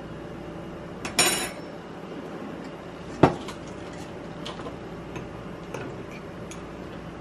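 Kitchen dishes and utensils knocking together: a ringing clink about a second in, a sharp knock about three seconds in, and a few faint ticks between.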